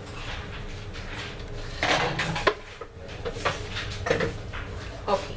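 Wooden spoon stirring a thick bread-and-milk batter in a large bowl, with several knocks of the spoon against the bowl, the loudest about two seconds in.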